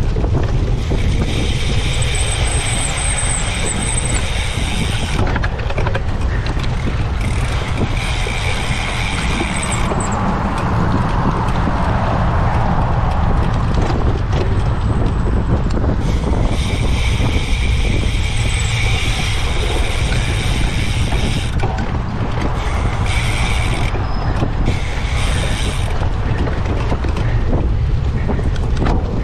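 A cyclocross bike being raced over rough ground, with wind buffeting the microphone and a steady low rumble and rattle from the bike. Several stretches of a high mechanical buzz come and go, a few seconds each.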